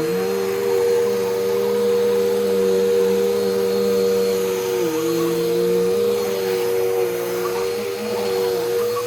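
Bissell Powerforce Bagless Turbo 6585 upright vacuum cleaner running while vacuuming: a steady motor whine over a lower hum that sags briefly and recovers a few times as it is pushed.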